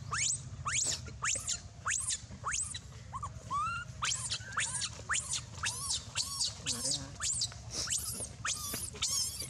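Baby monkey squealing over and over: sharp, high-pitched squeals that sweep up and back down, about two a second, with a few lower, shorter calls a few seconds in.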